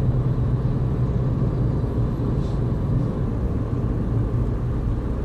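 Steady low engine and tyre rumble of a car driving at motorway speed, heard from inside the cabin.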